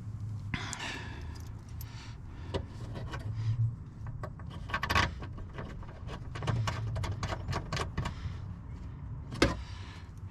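Light metallic clicks and clinks of a hand tool and small screws as an 8 mm screw is fitted and tightened on a car door's window hardware. The clicks come irregularly and are thickest about two-thirds of the way through, over a steady low hum.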